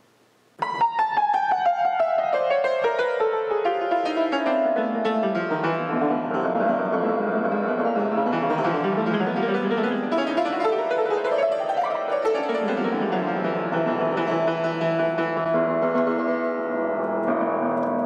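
Upright piano played in fast runs: a cascade of notes stepping down from the top of the keyboard, then sweeping up and down again, the notes ringing on over one another.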